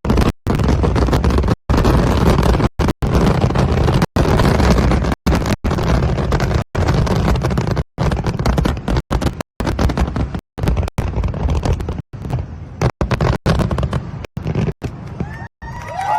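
A dense fireworks barrage: a continuous rumble and crackle of shells bursting, with the sound cutting out for brief moments many times. Near the end a few whistling tones come in.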